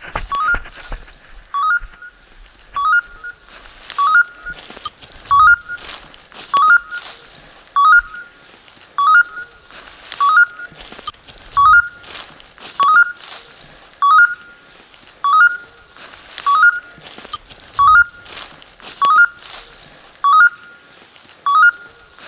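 A hunting dog's electronic beeper collar sounds a short rising chirp about every 1.2 seconds in an even rhythm. Footsteps rustle through dry fallen leaves underneath.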